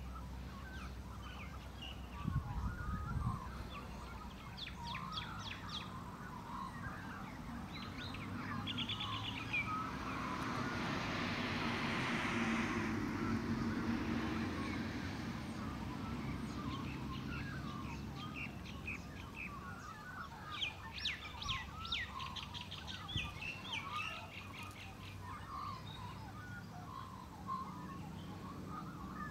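Wild birds chirping and trilling in outdoor ambience, several birds overlapping, with quick repeated trills. A rushing swell of noise rises and fades in the middle, and a few soft thumps come near the start.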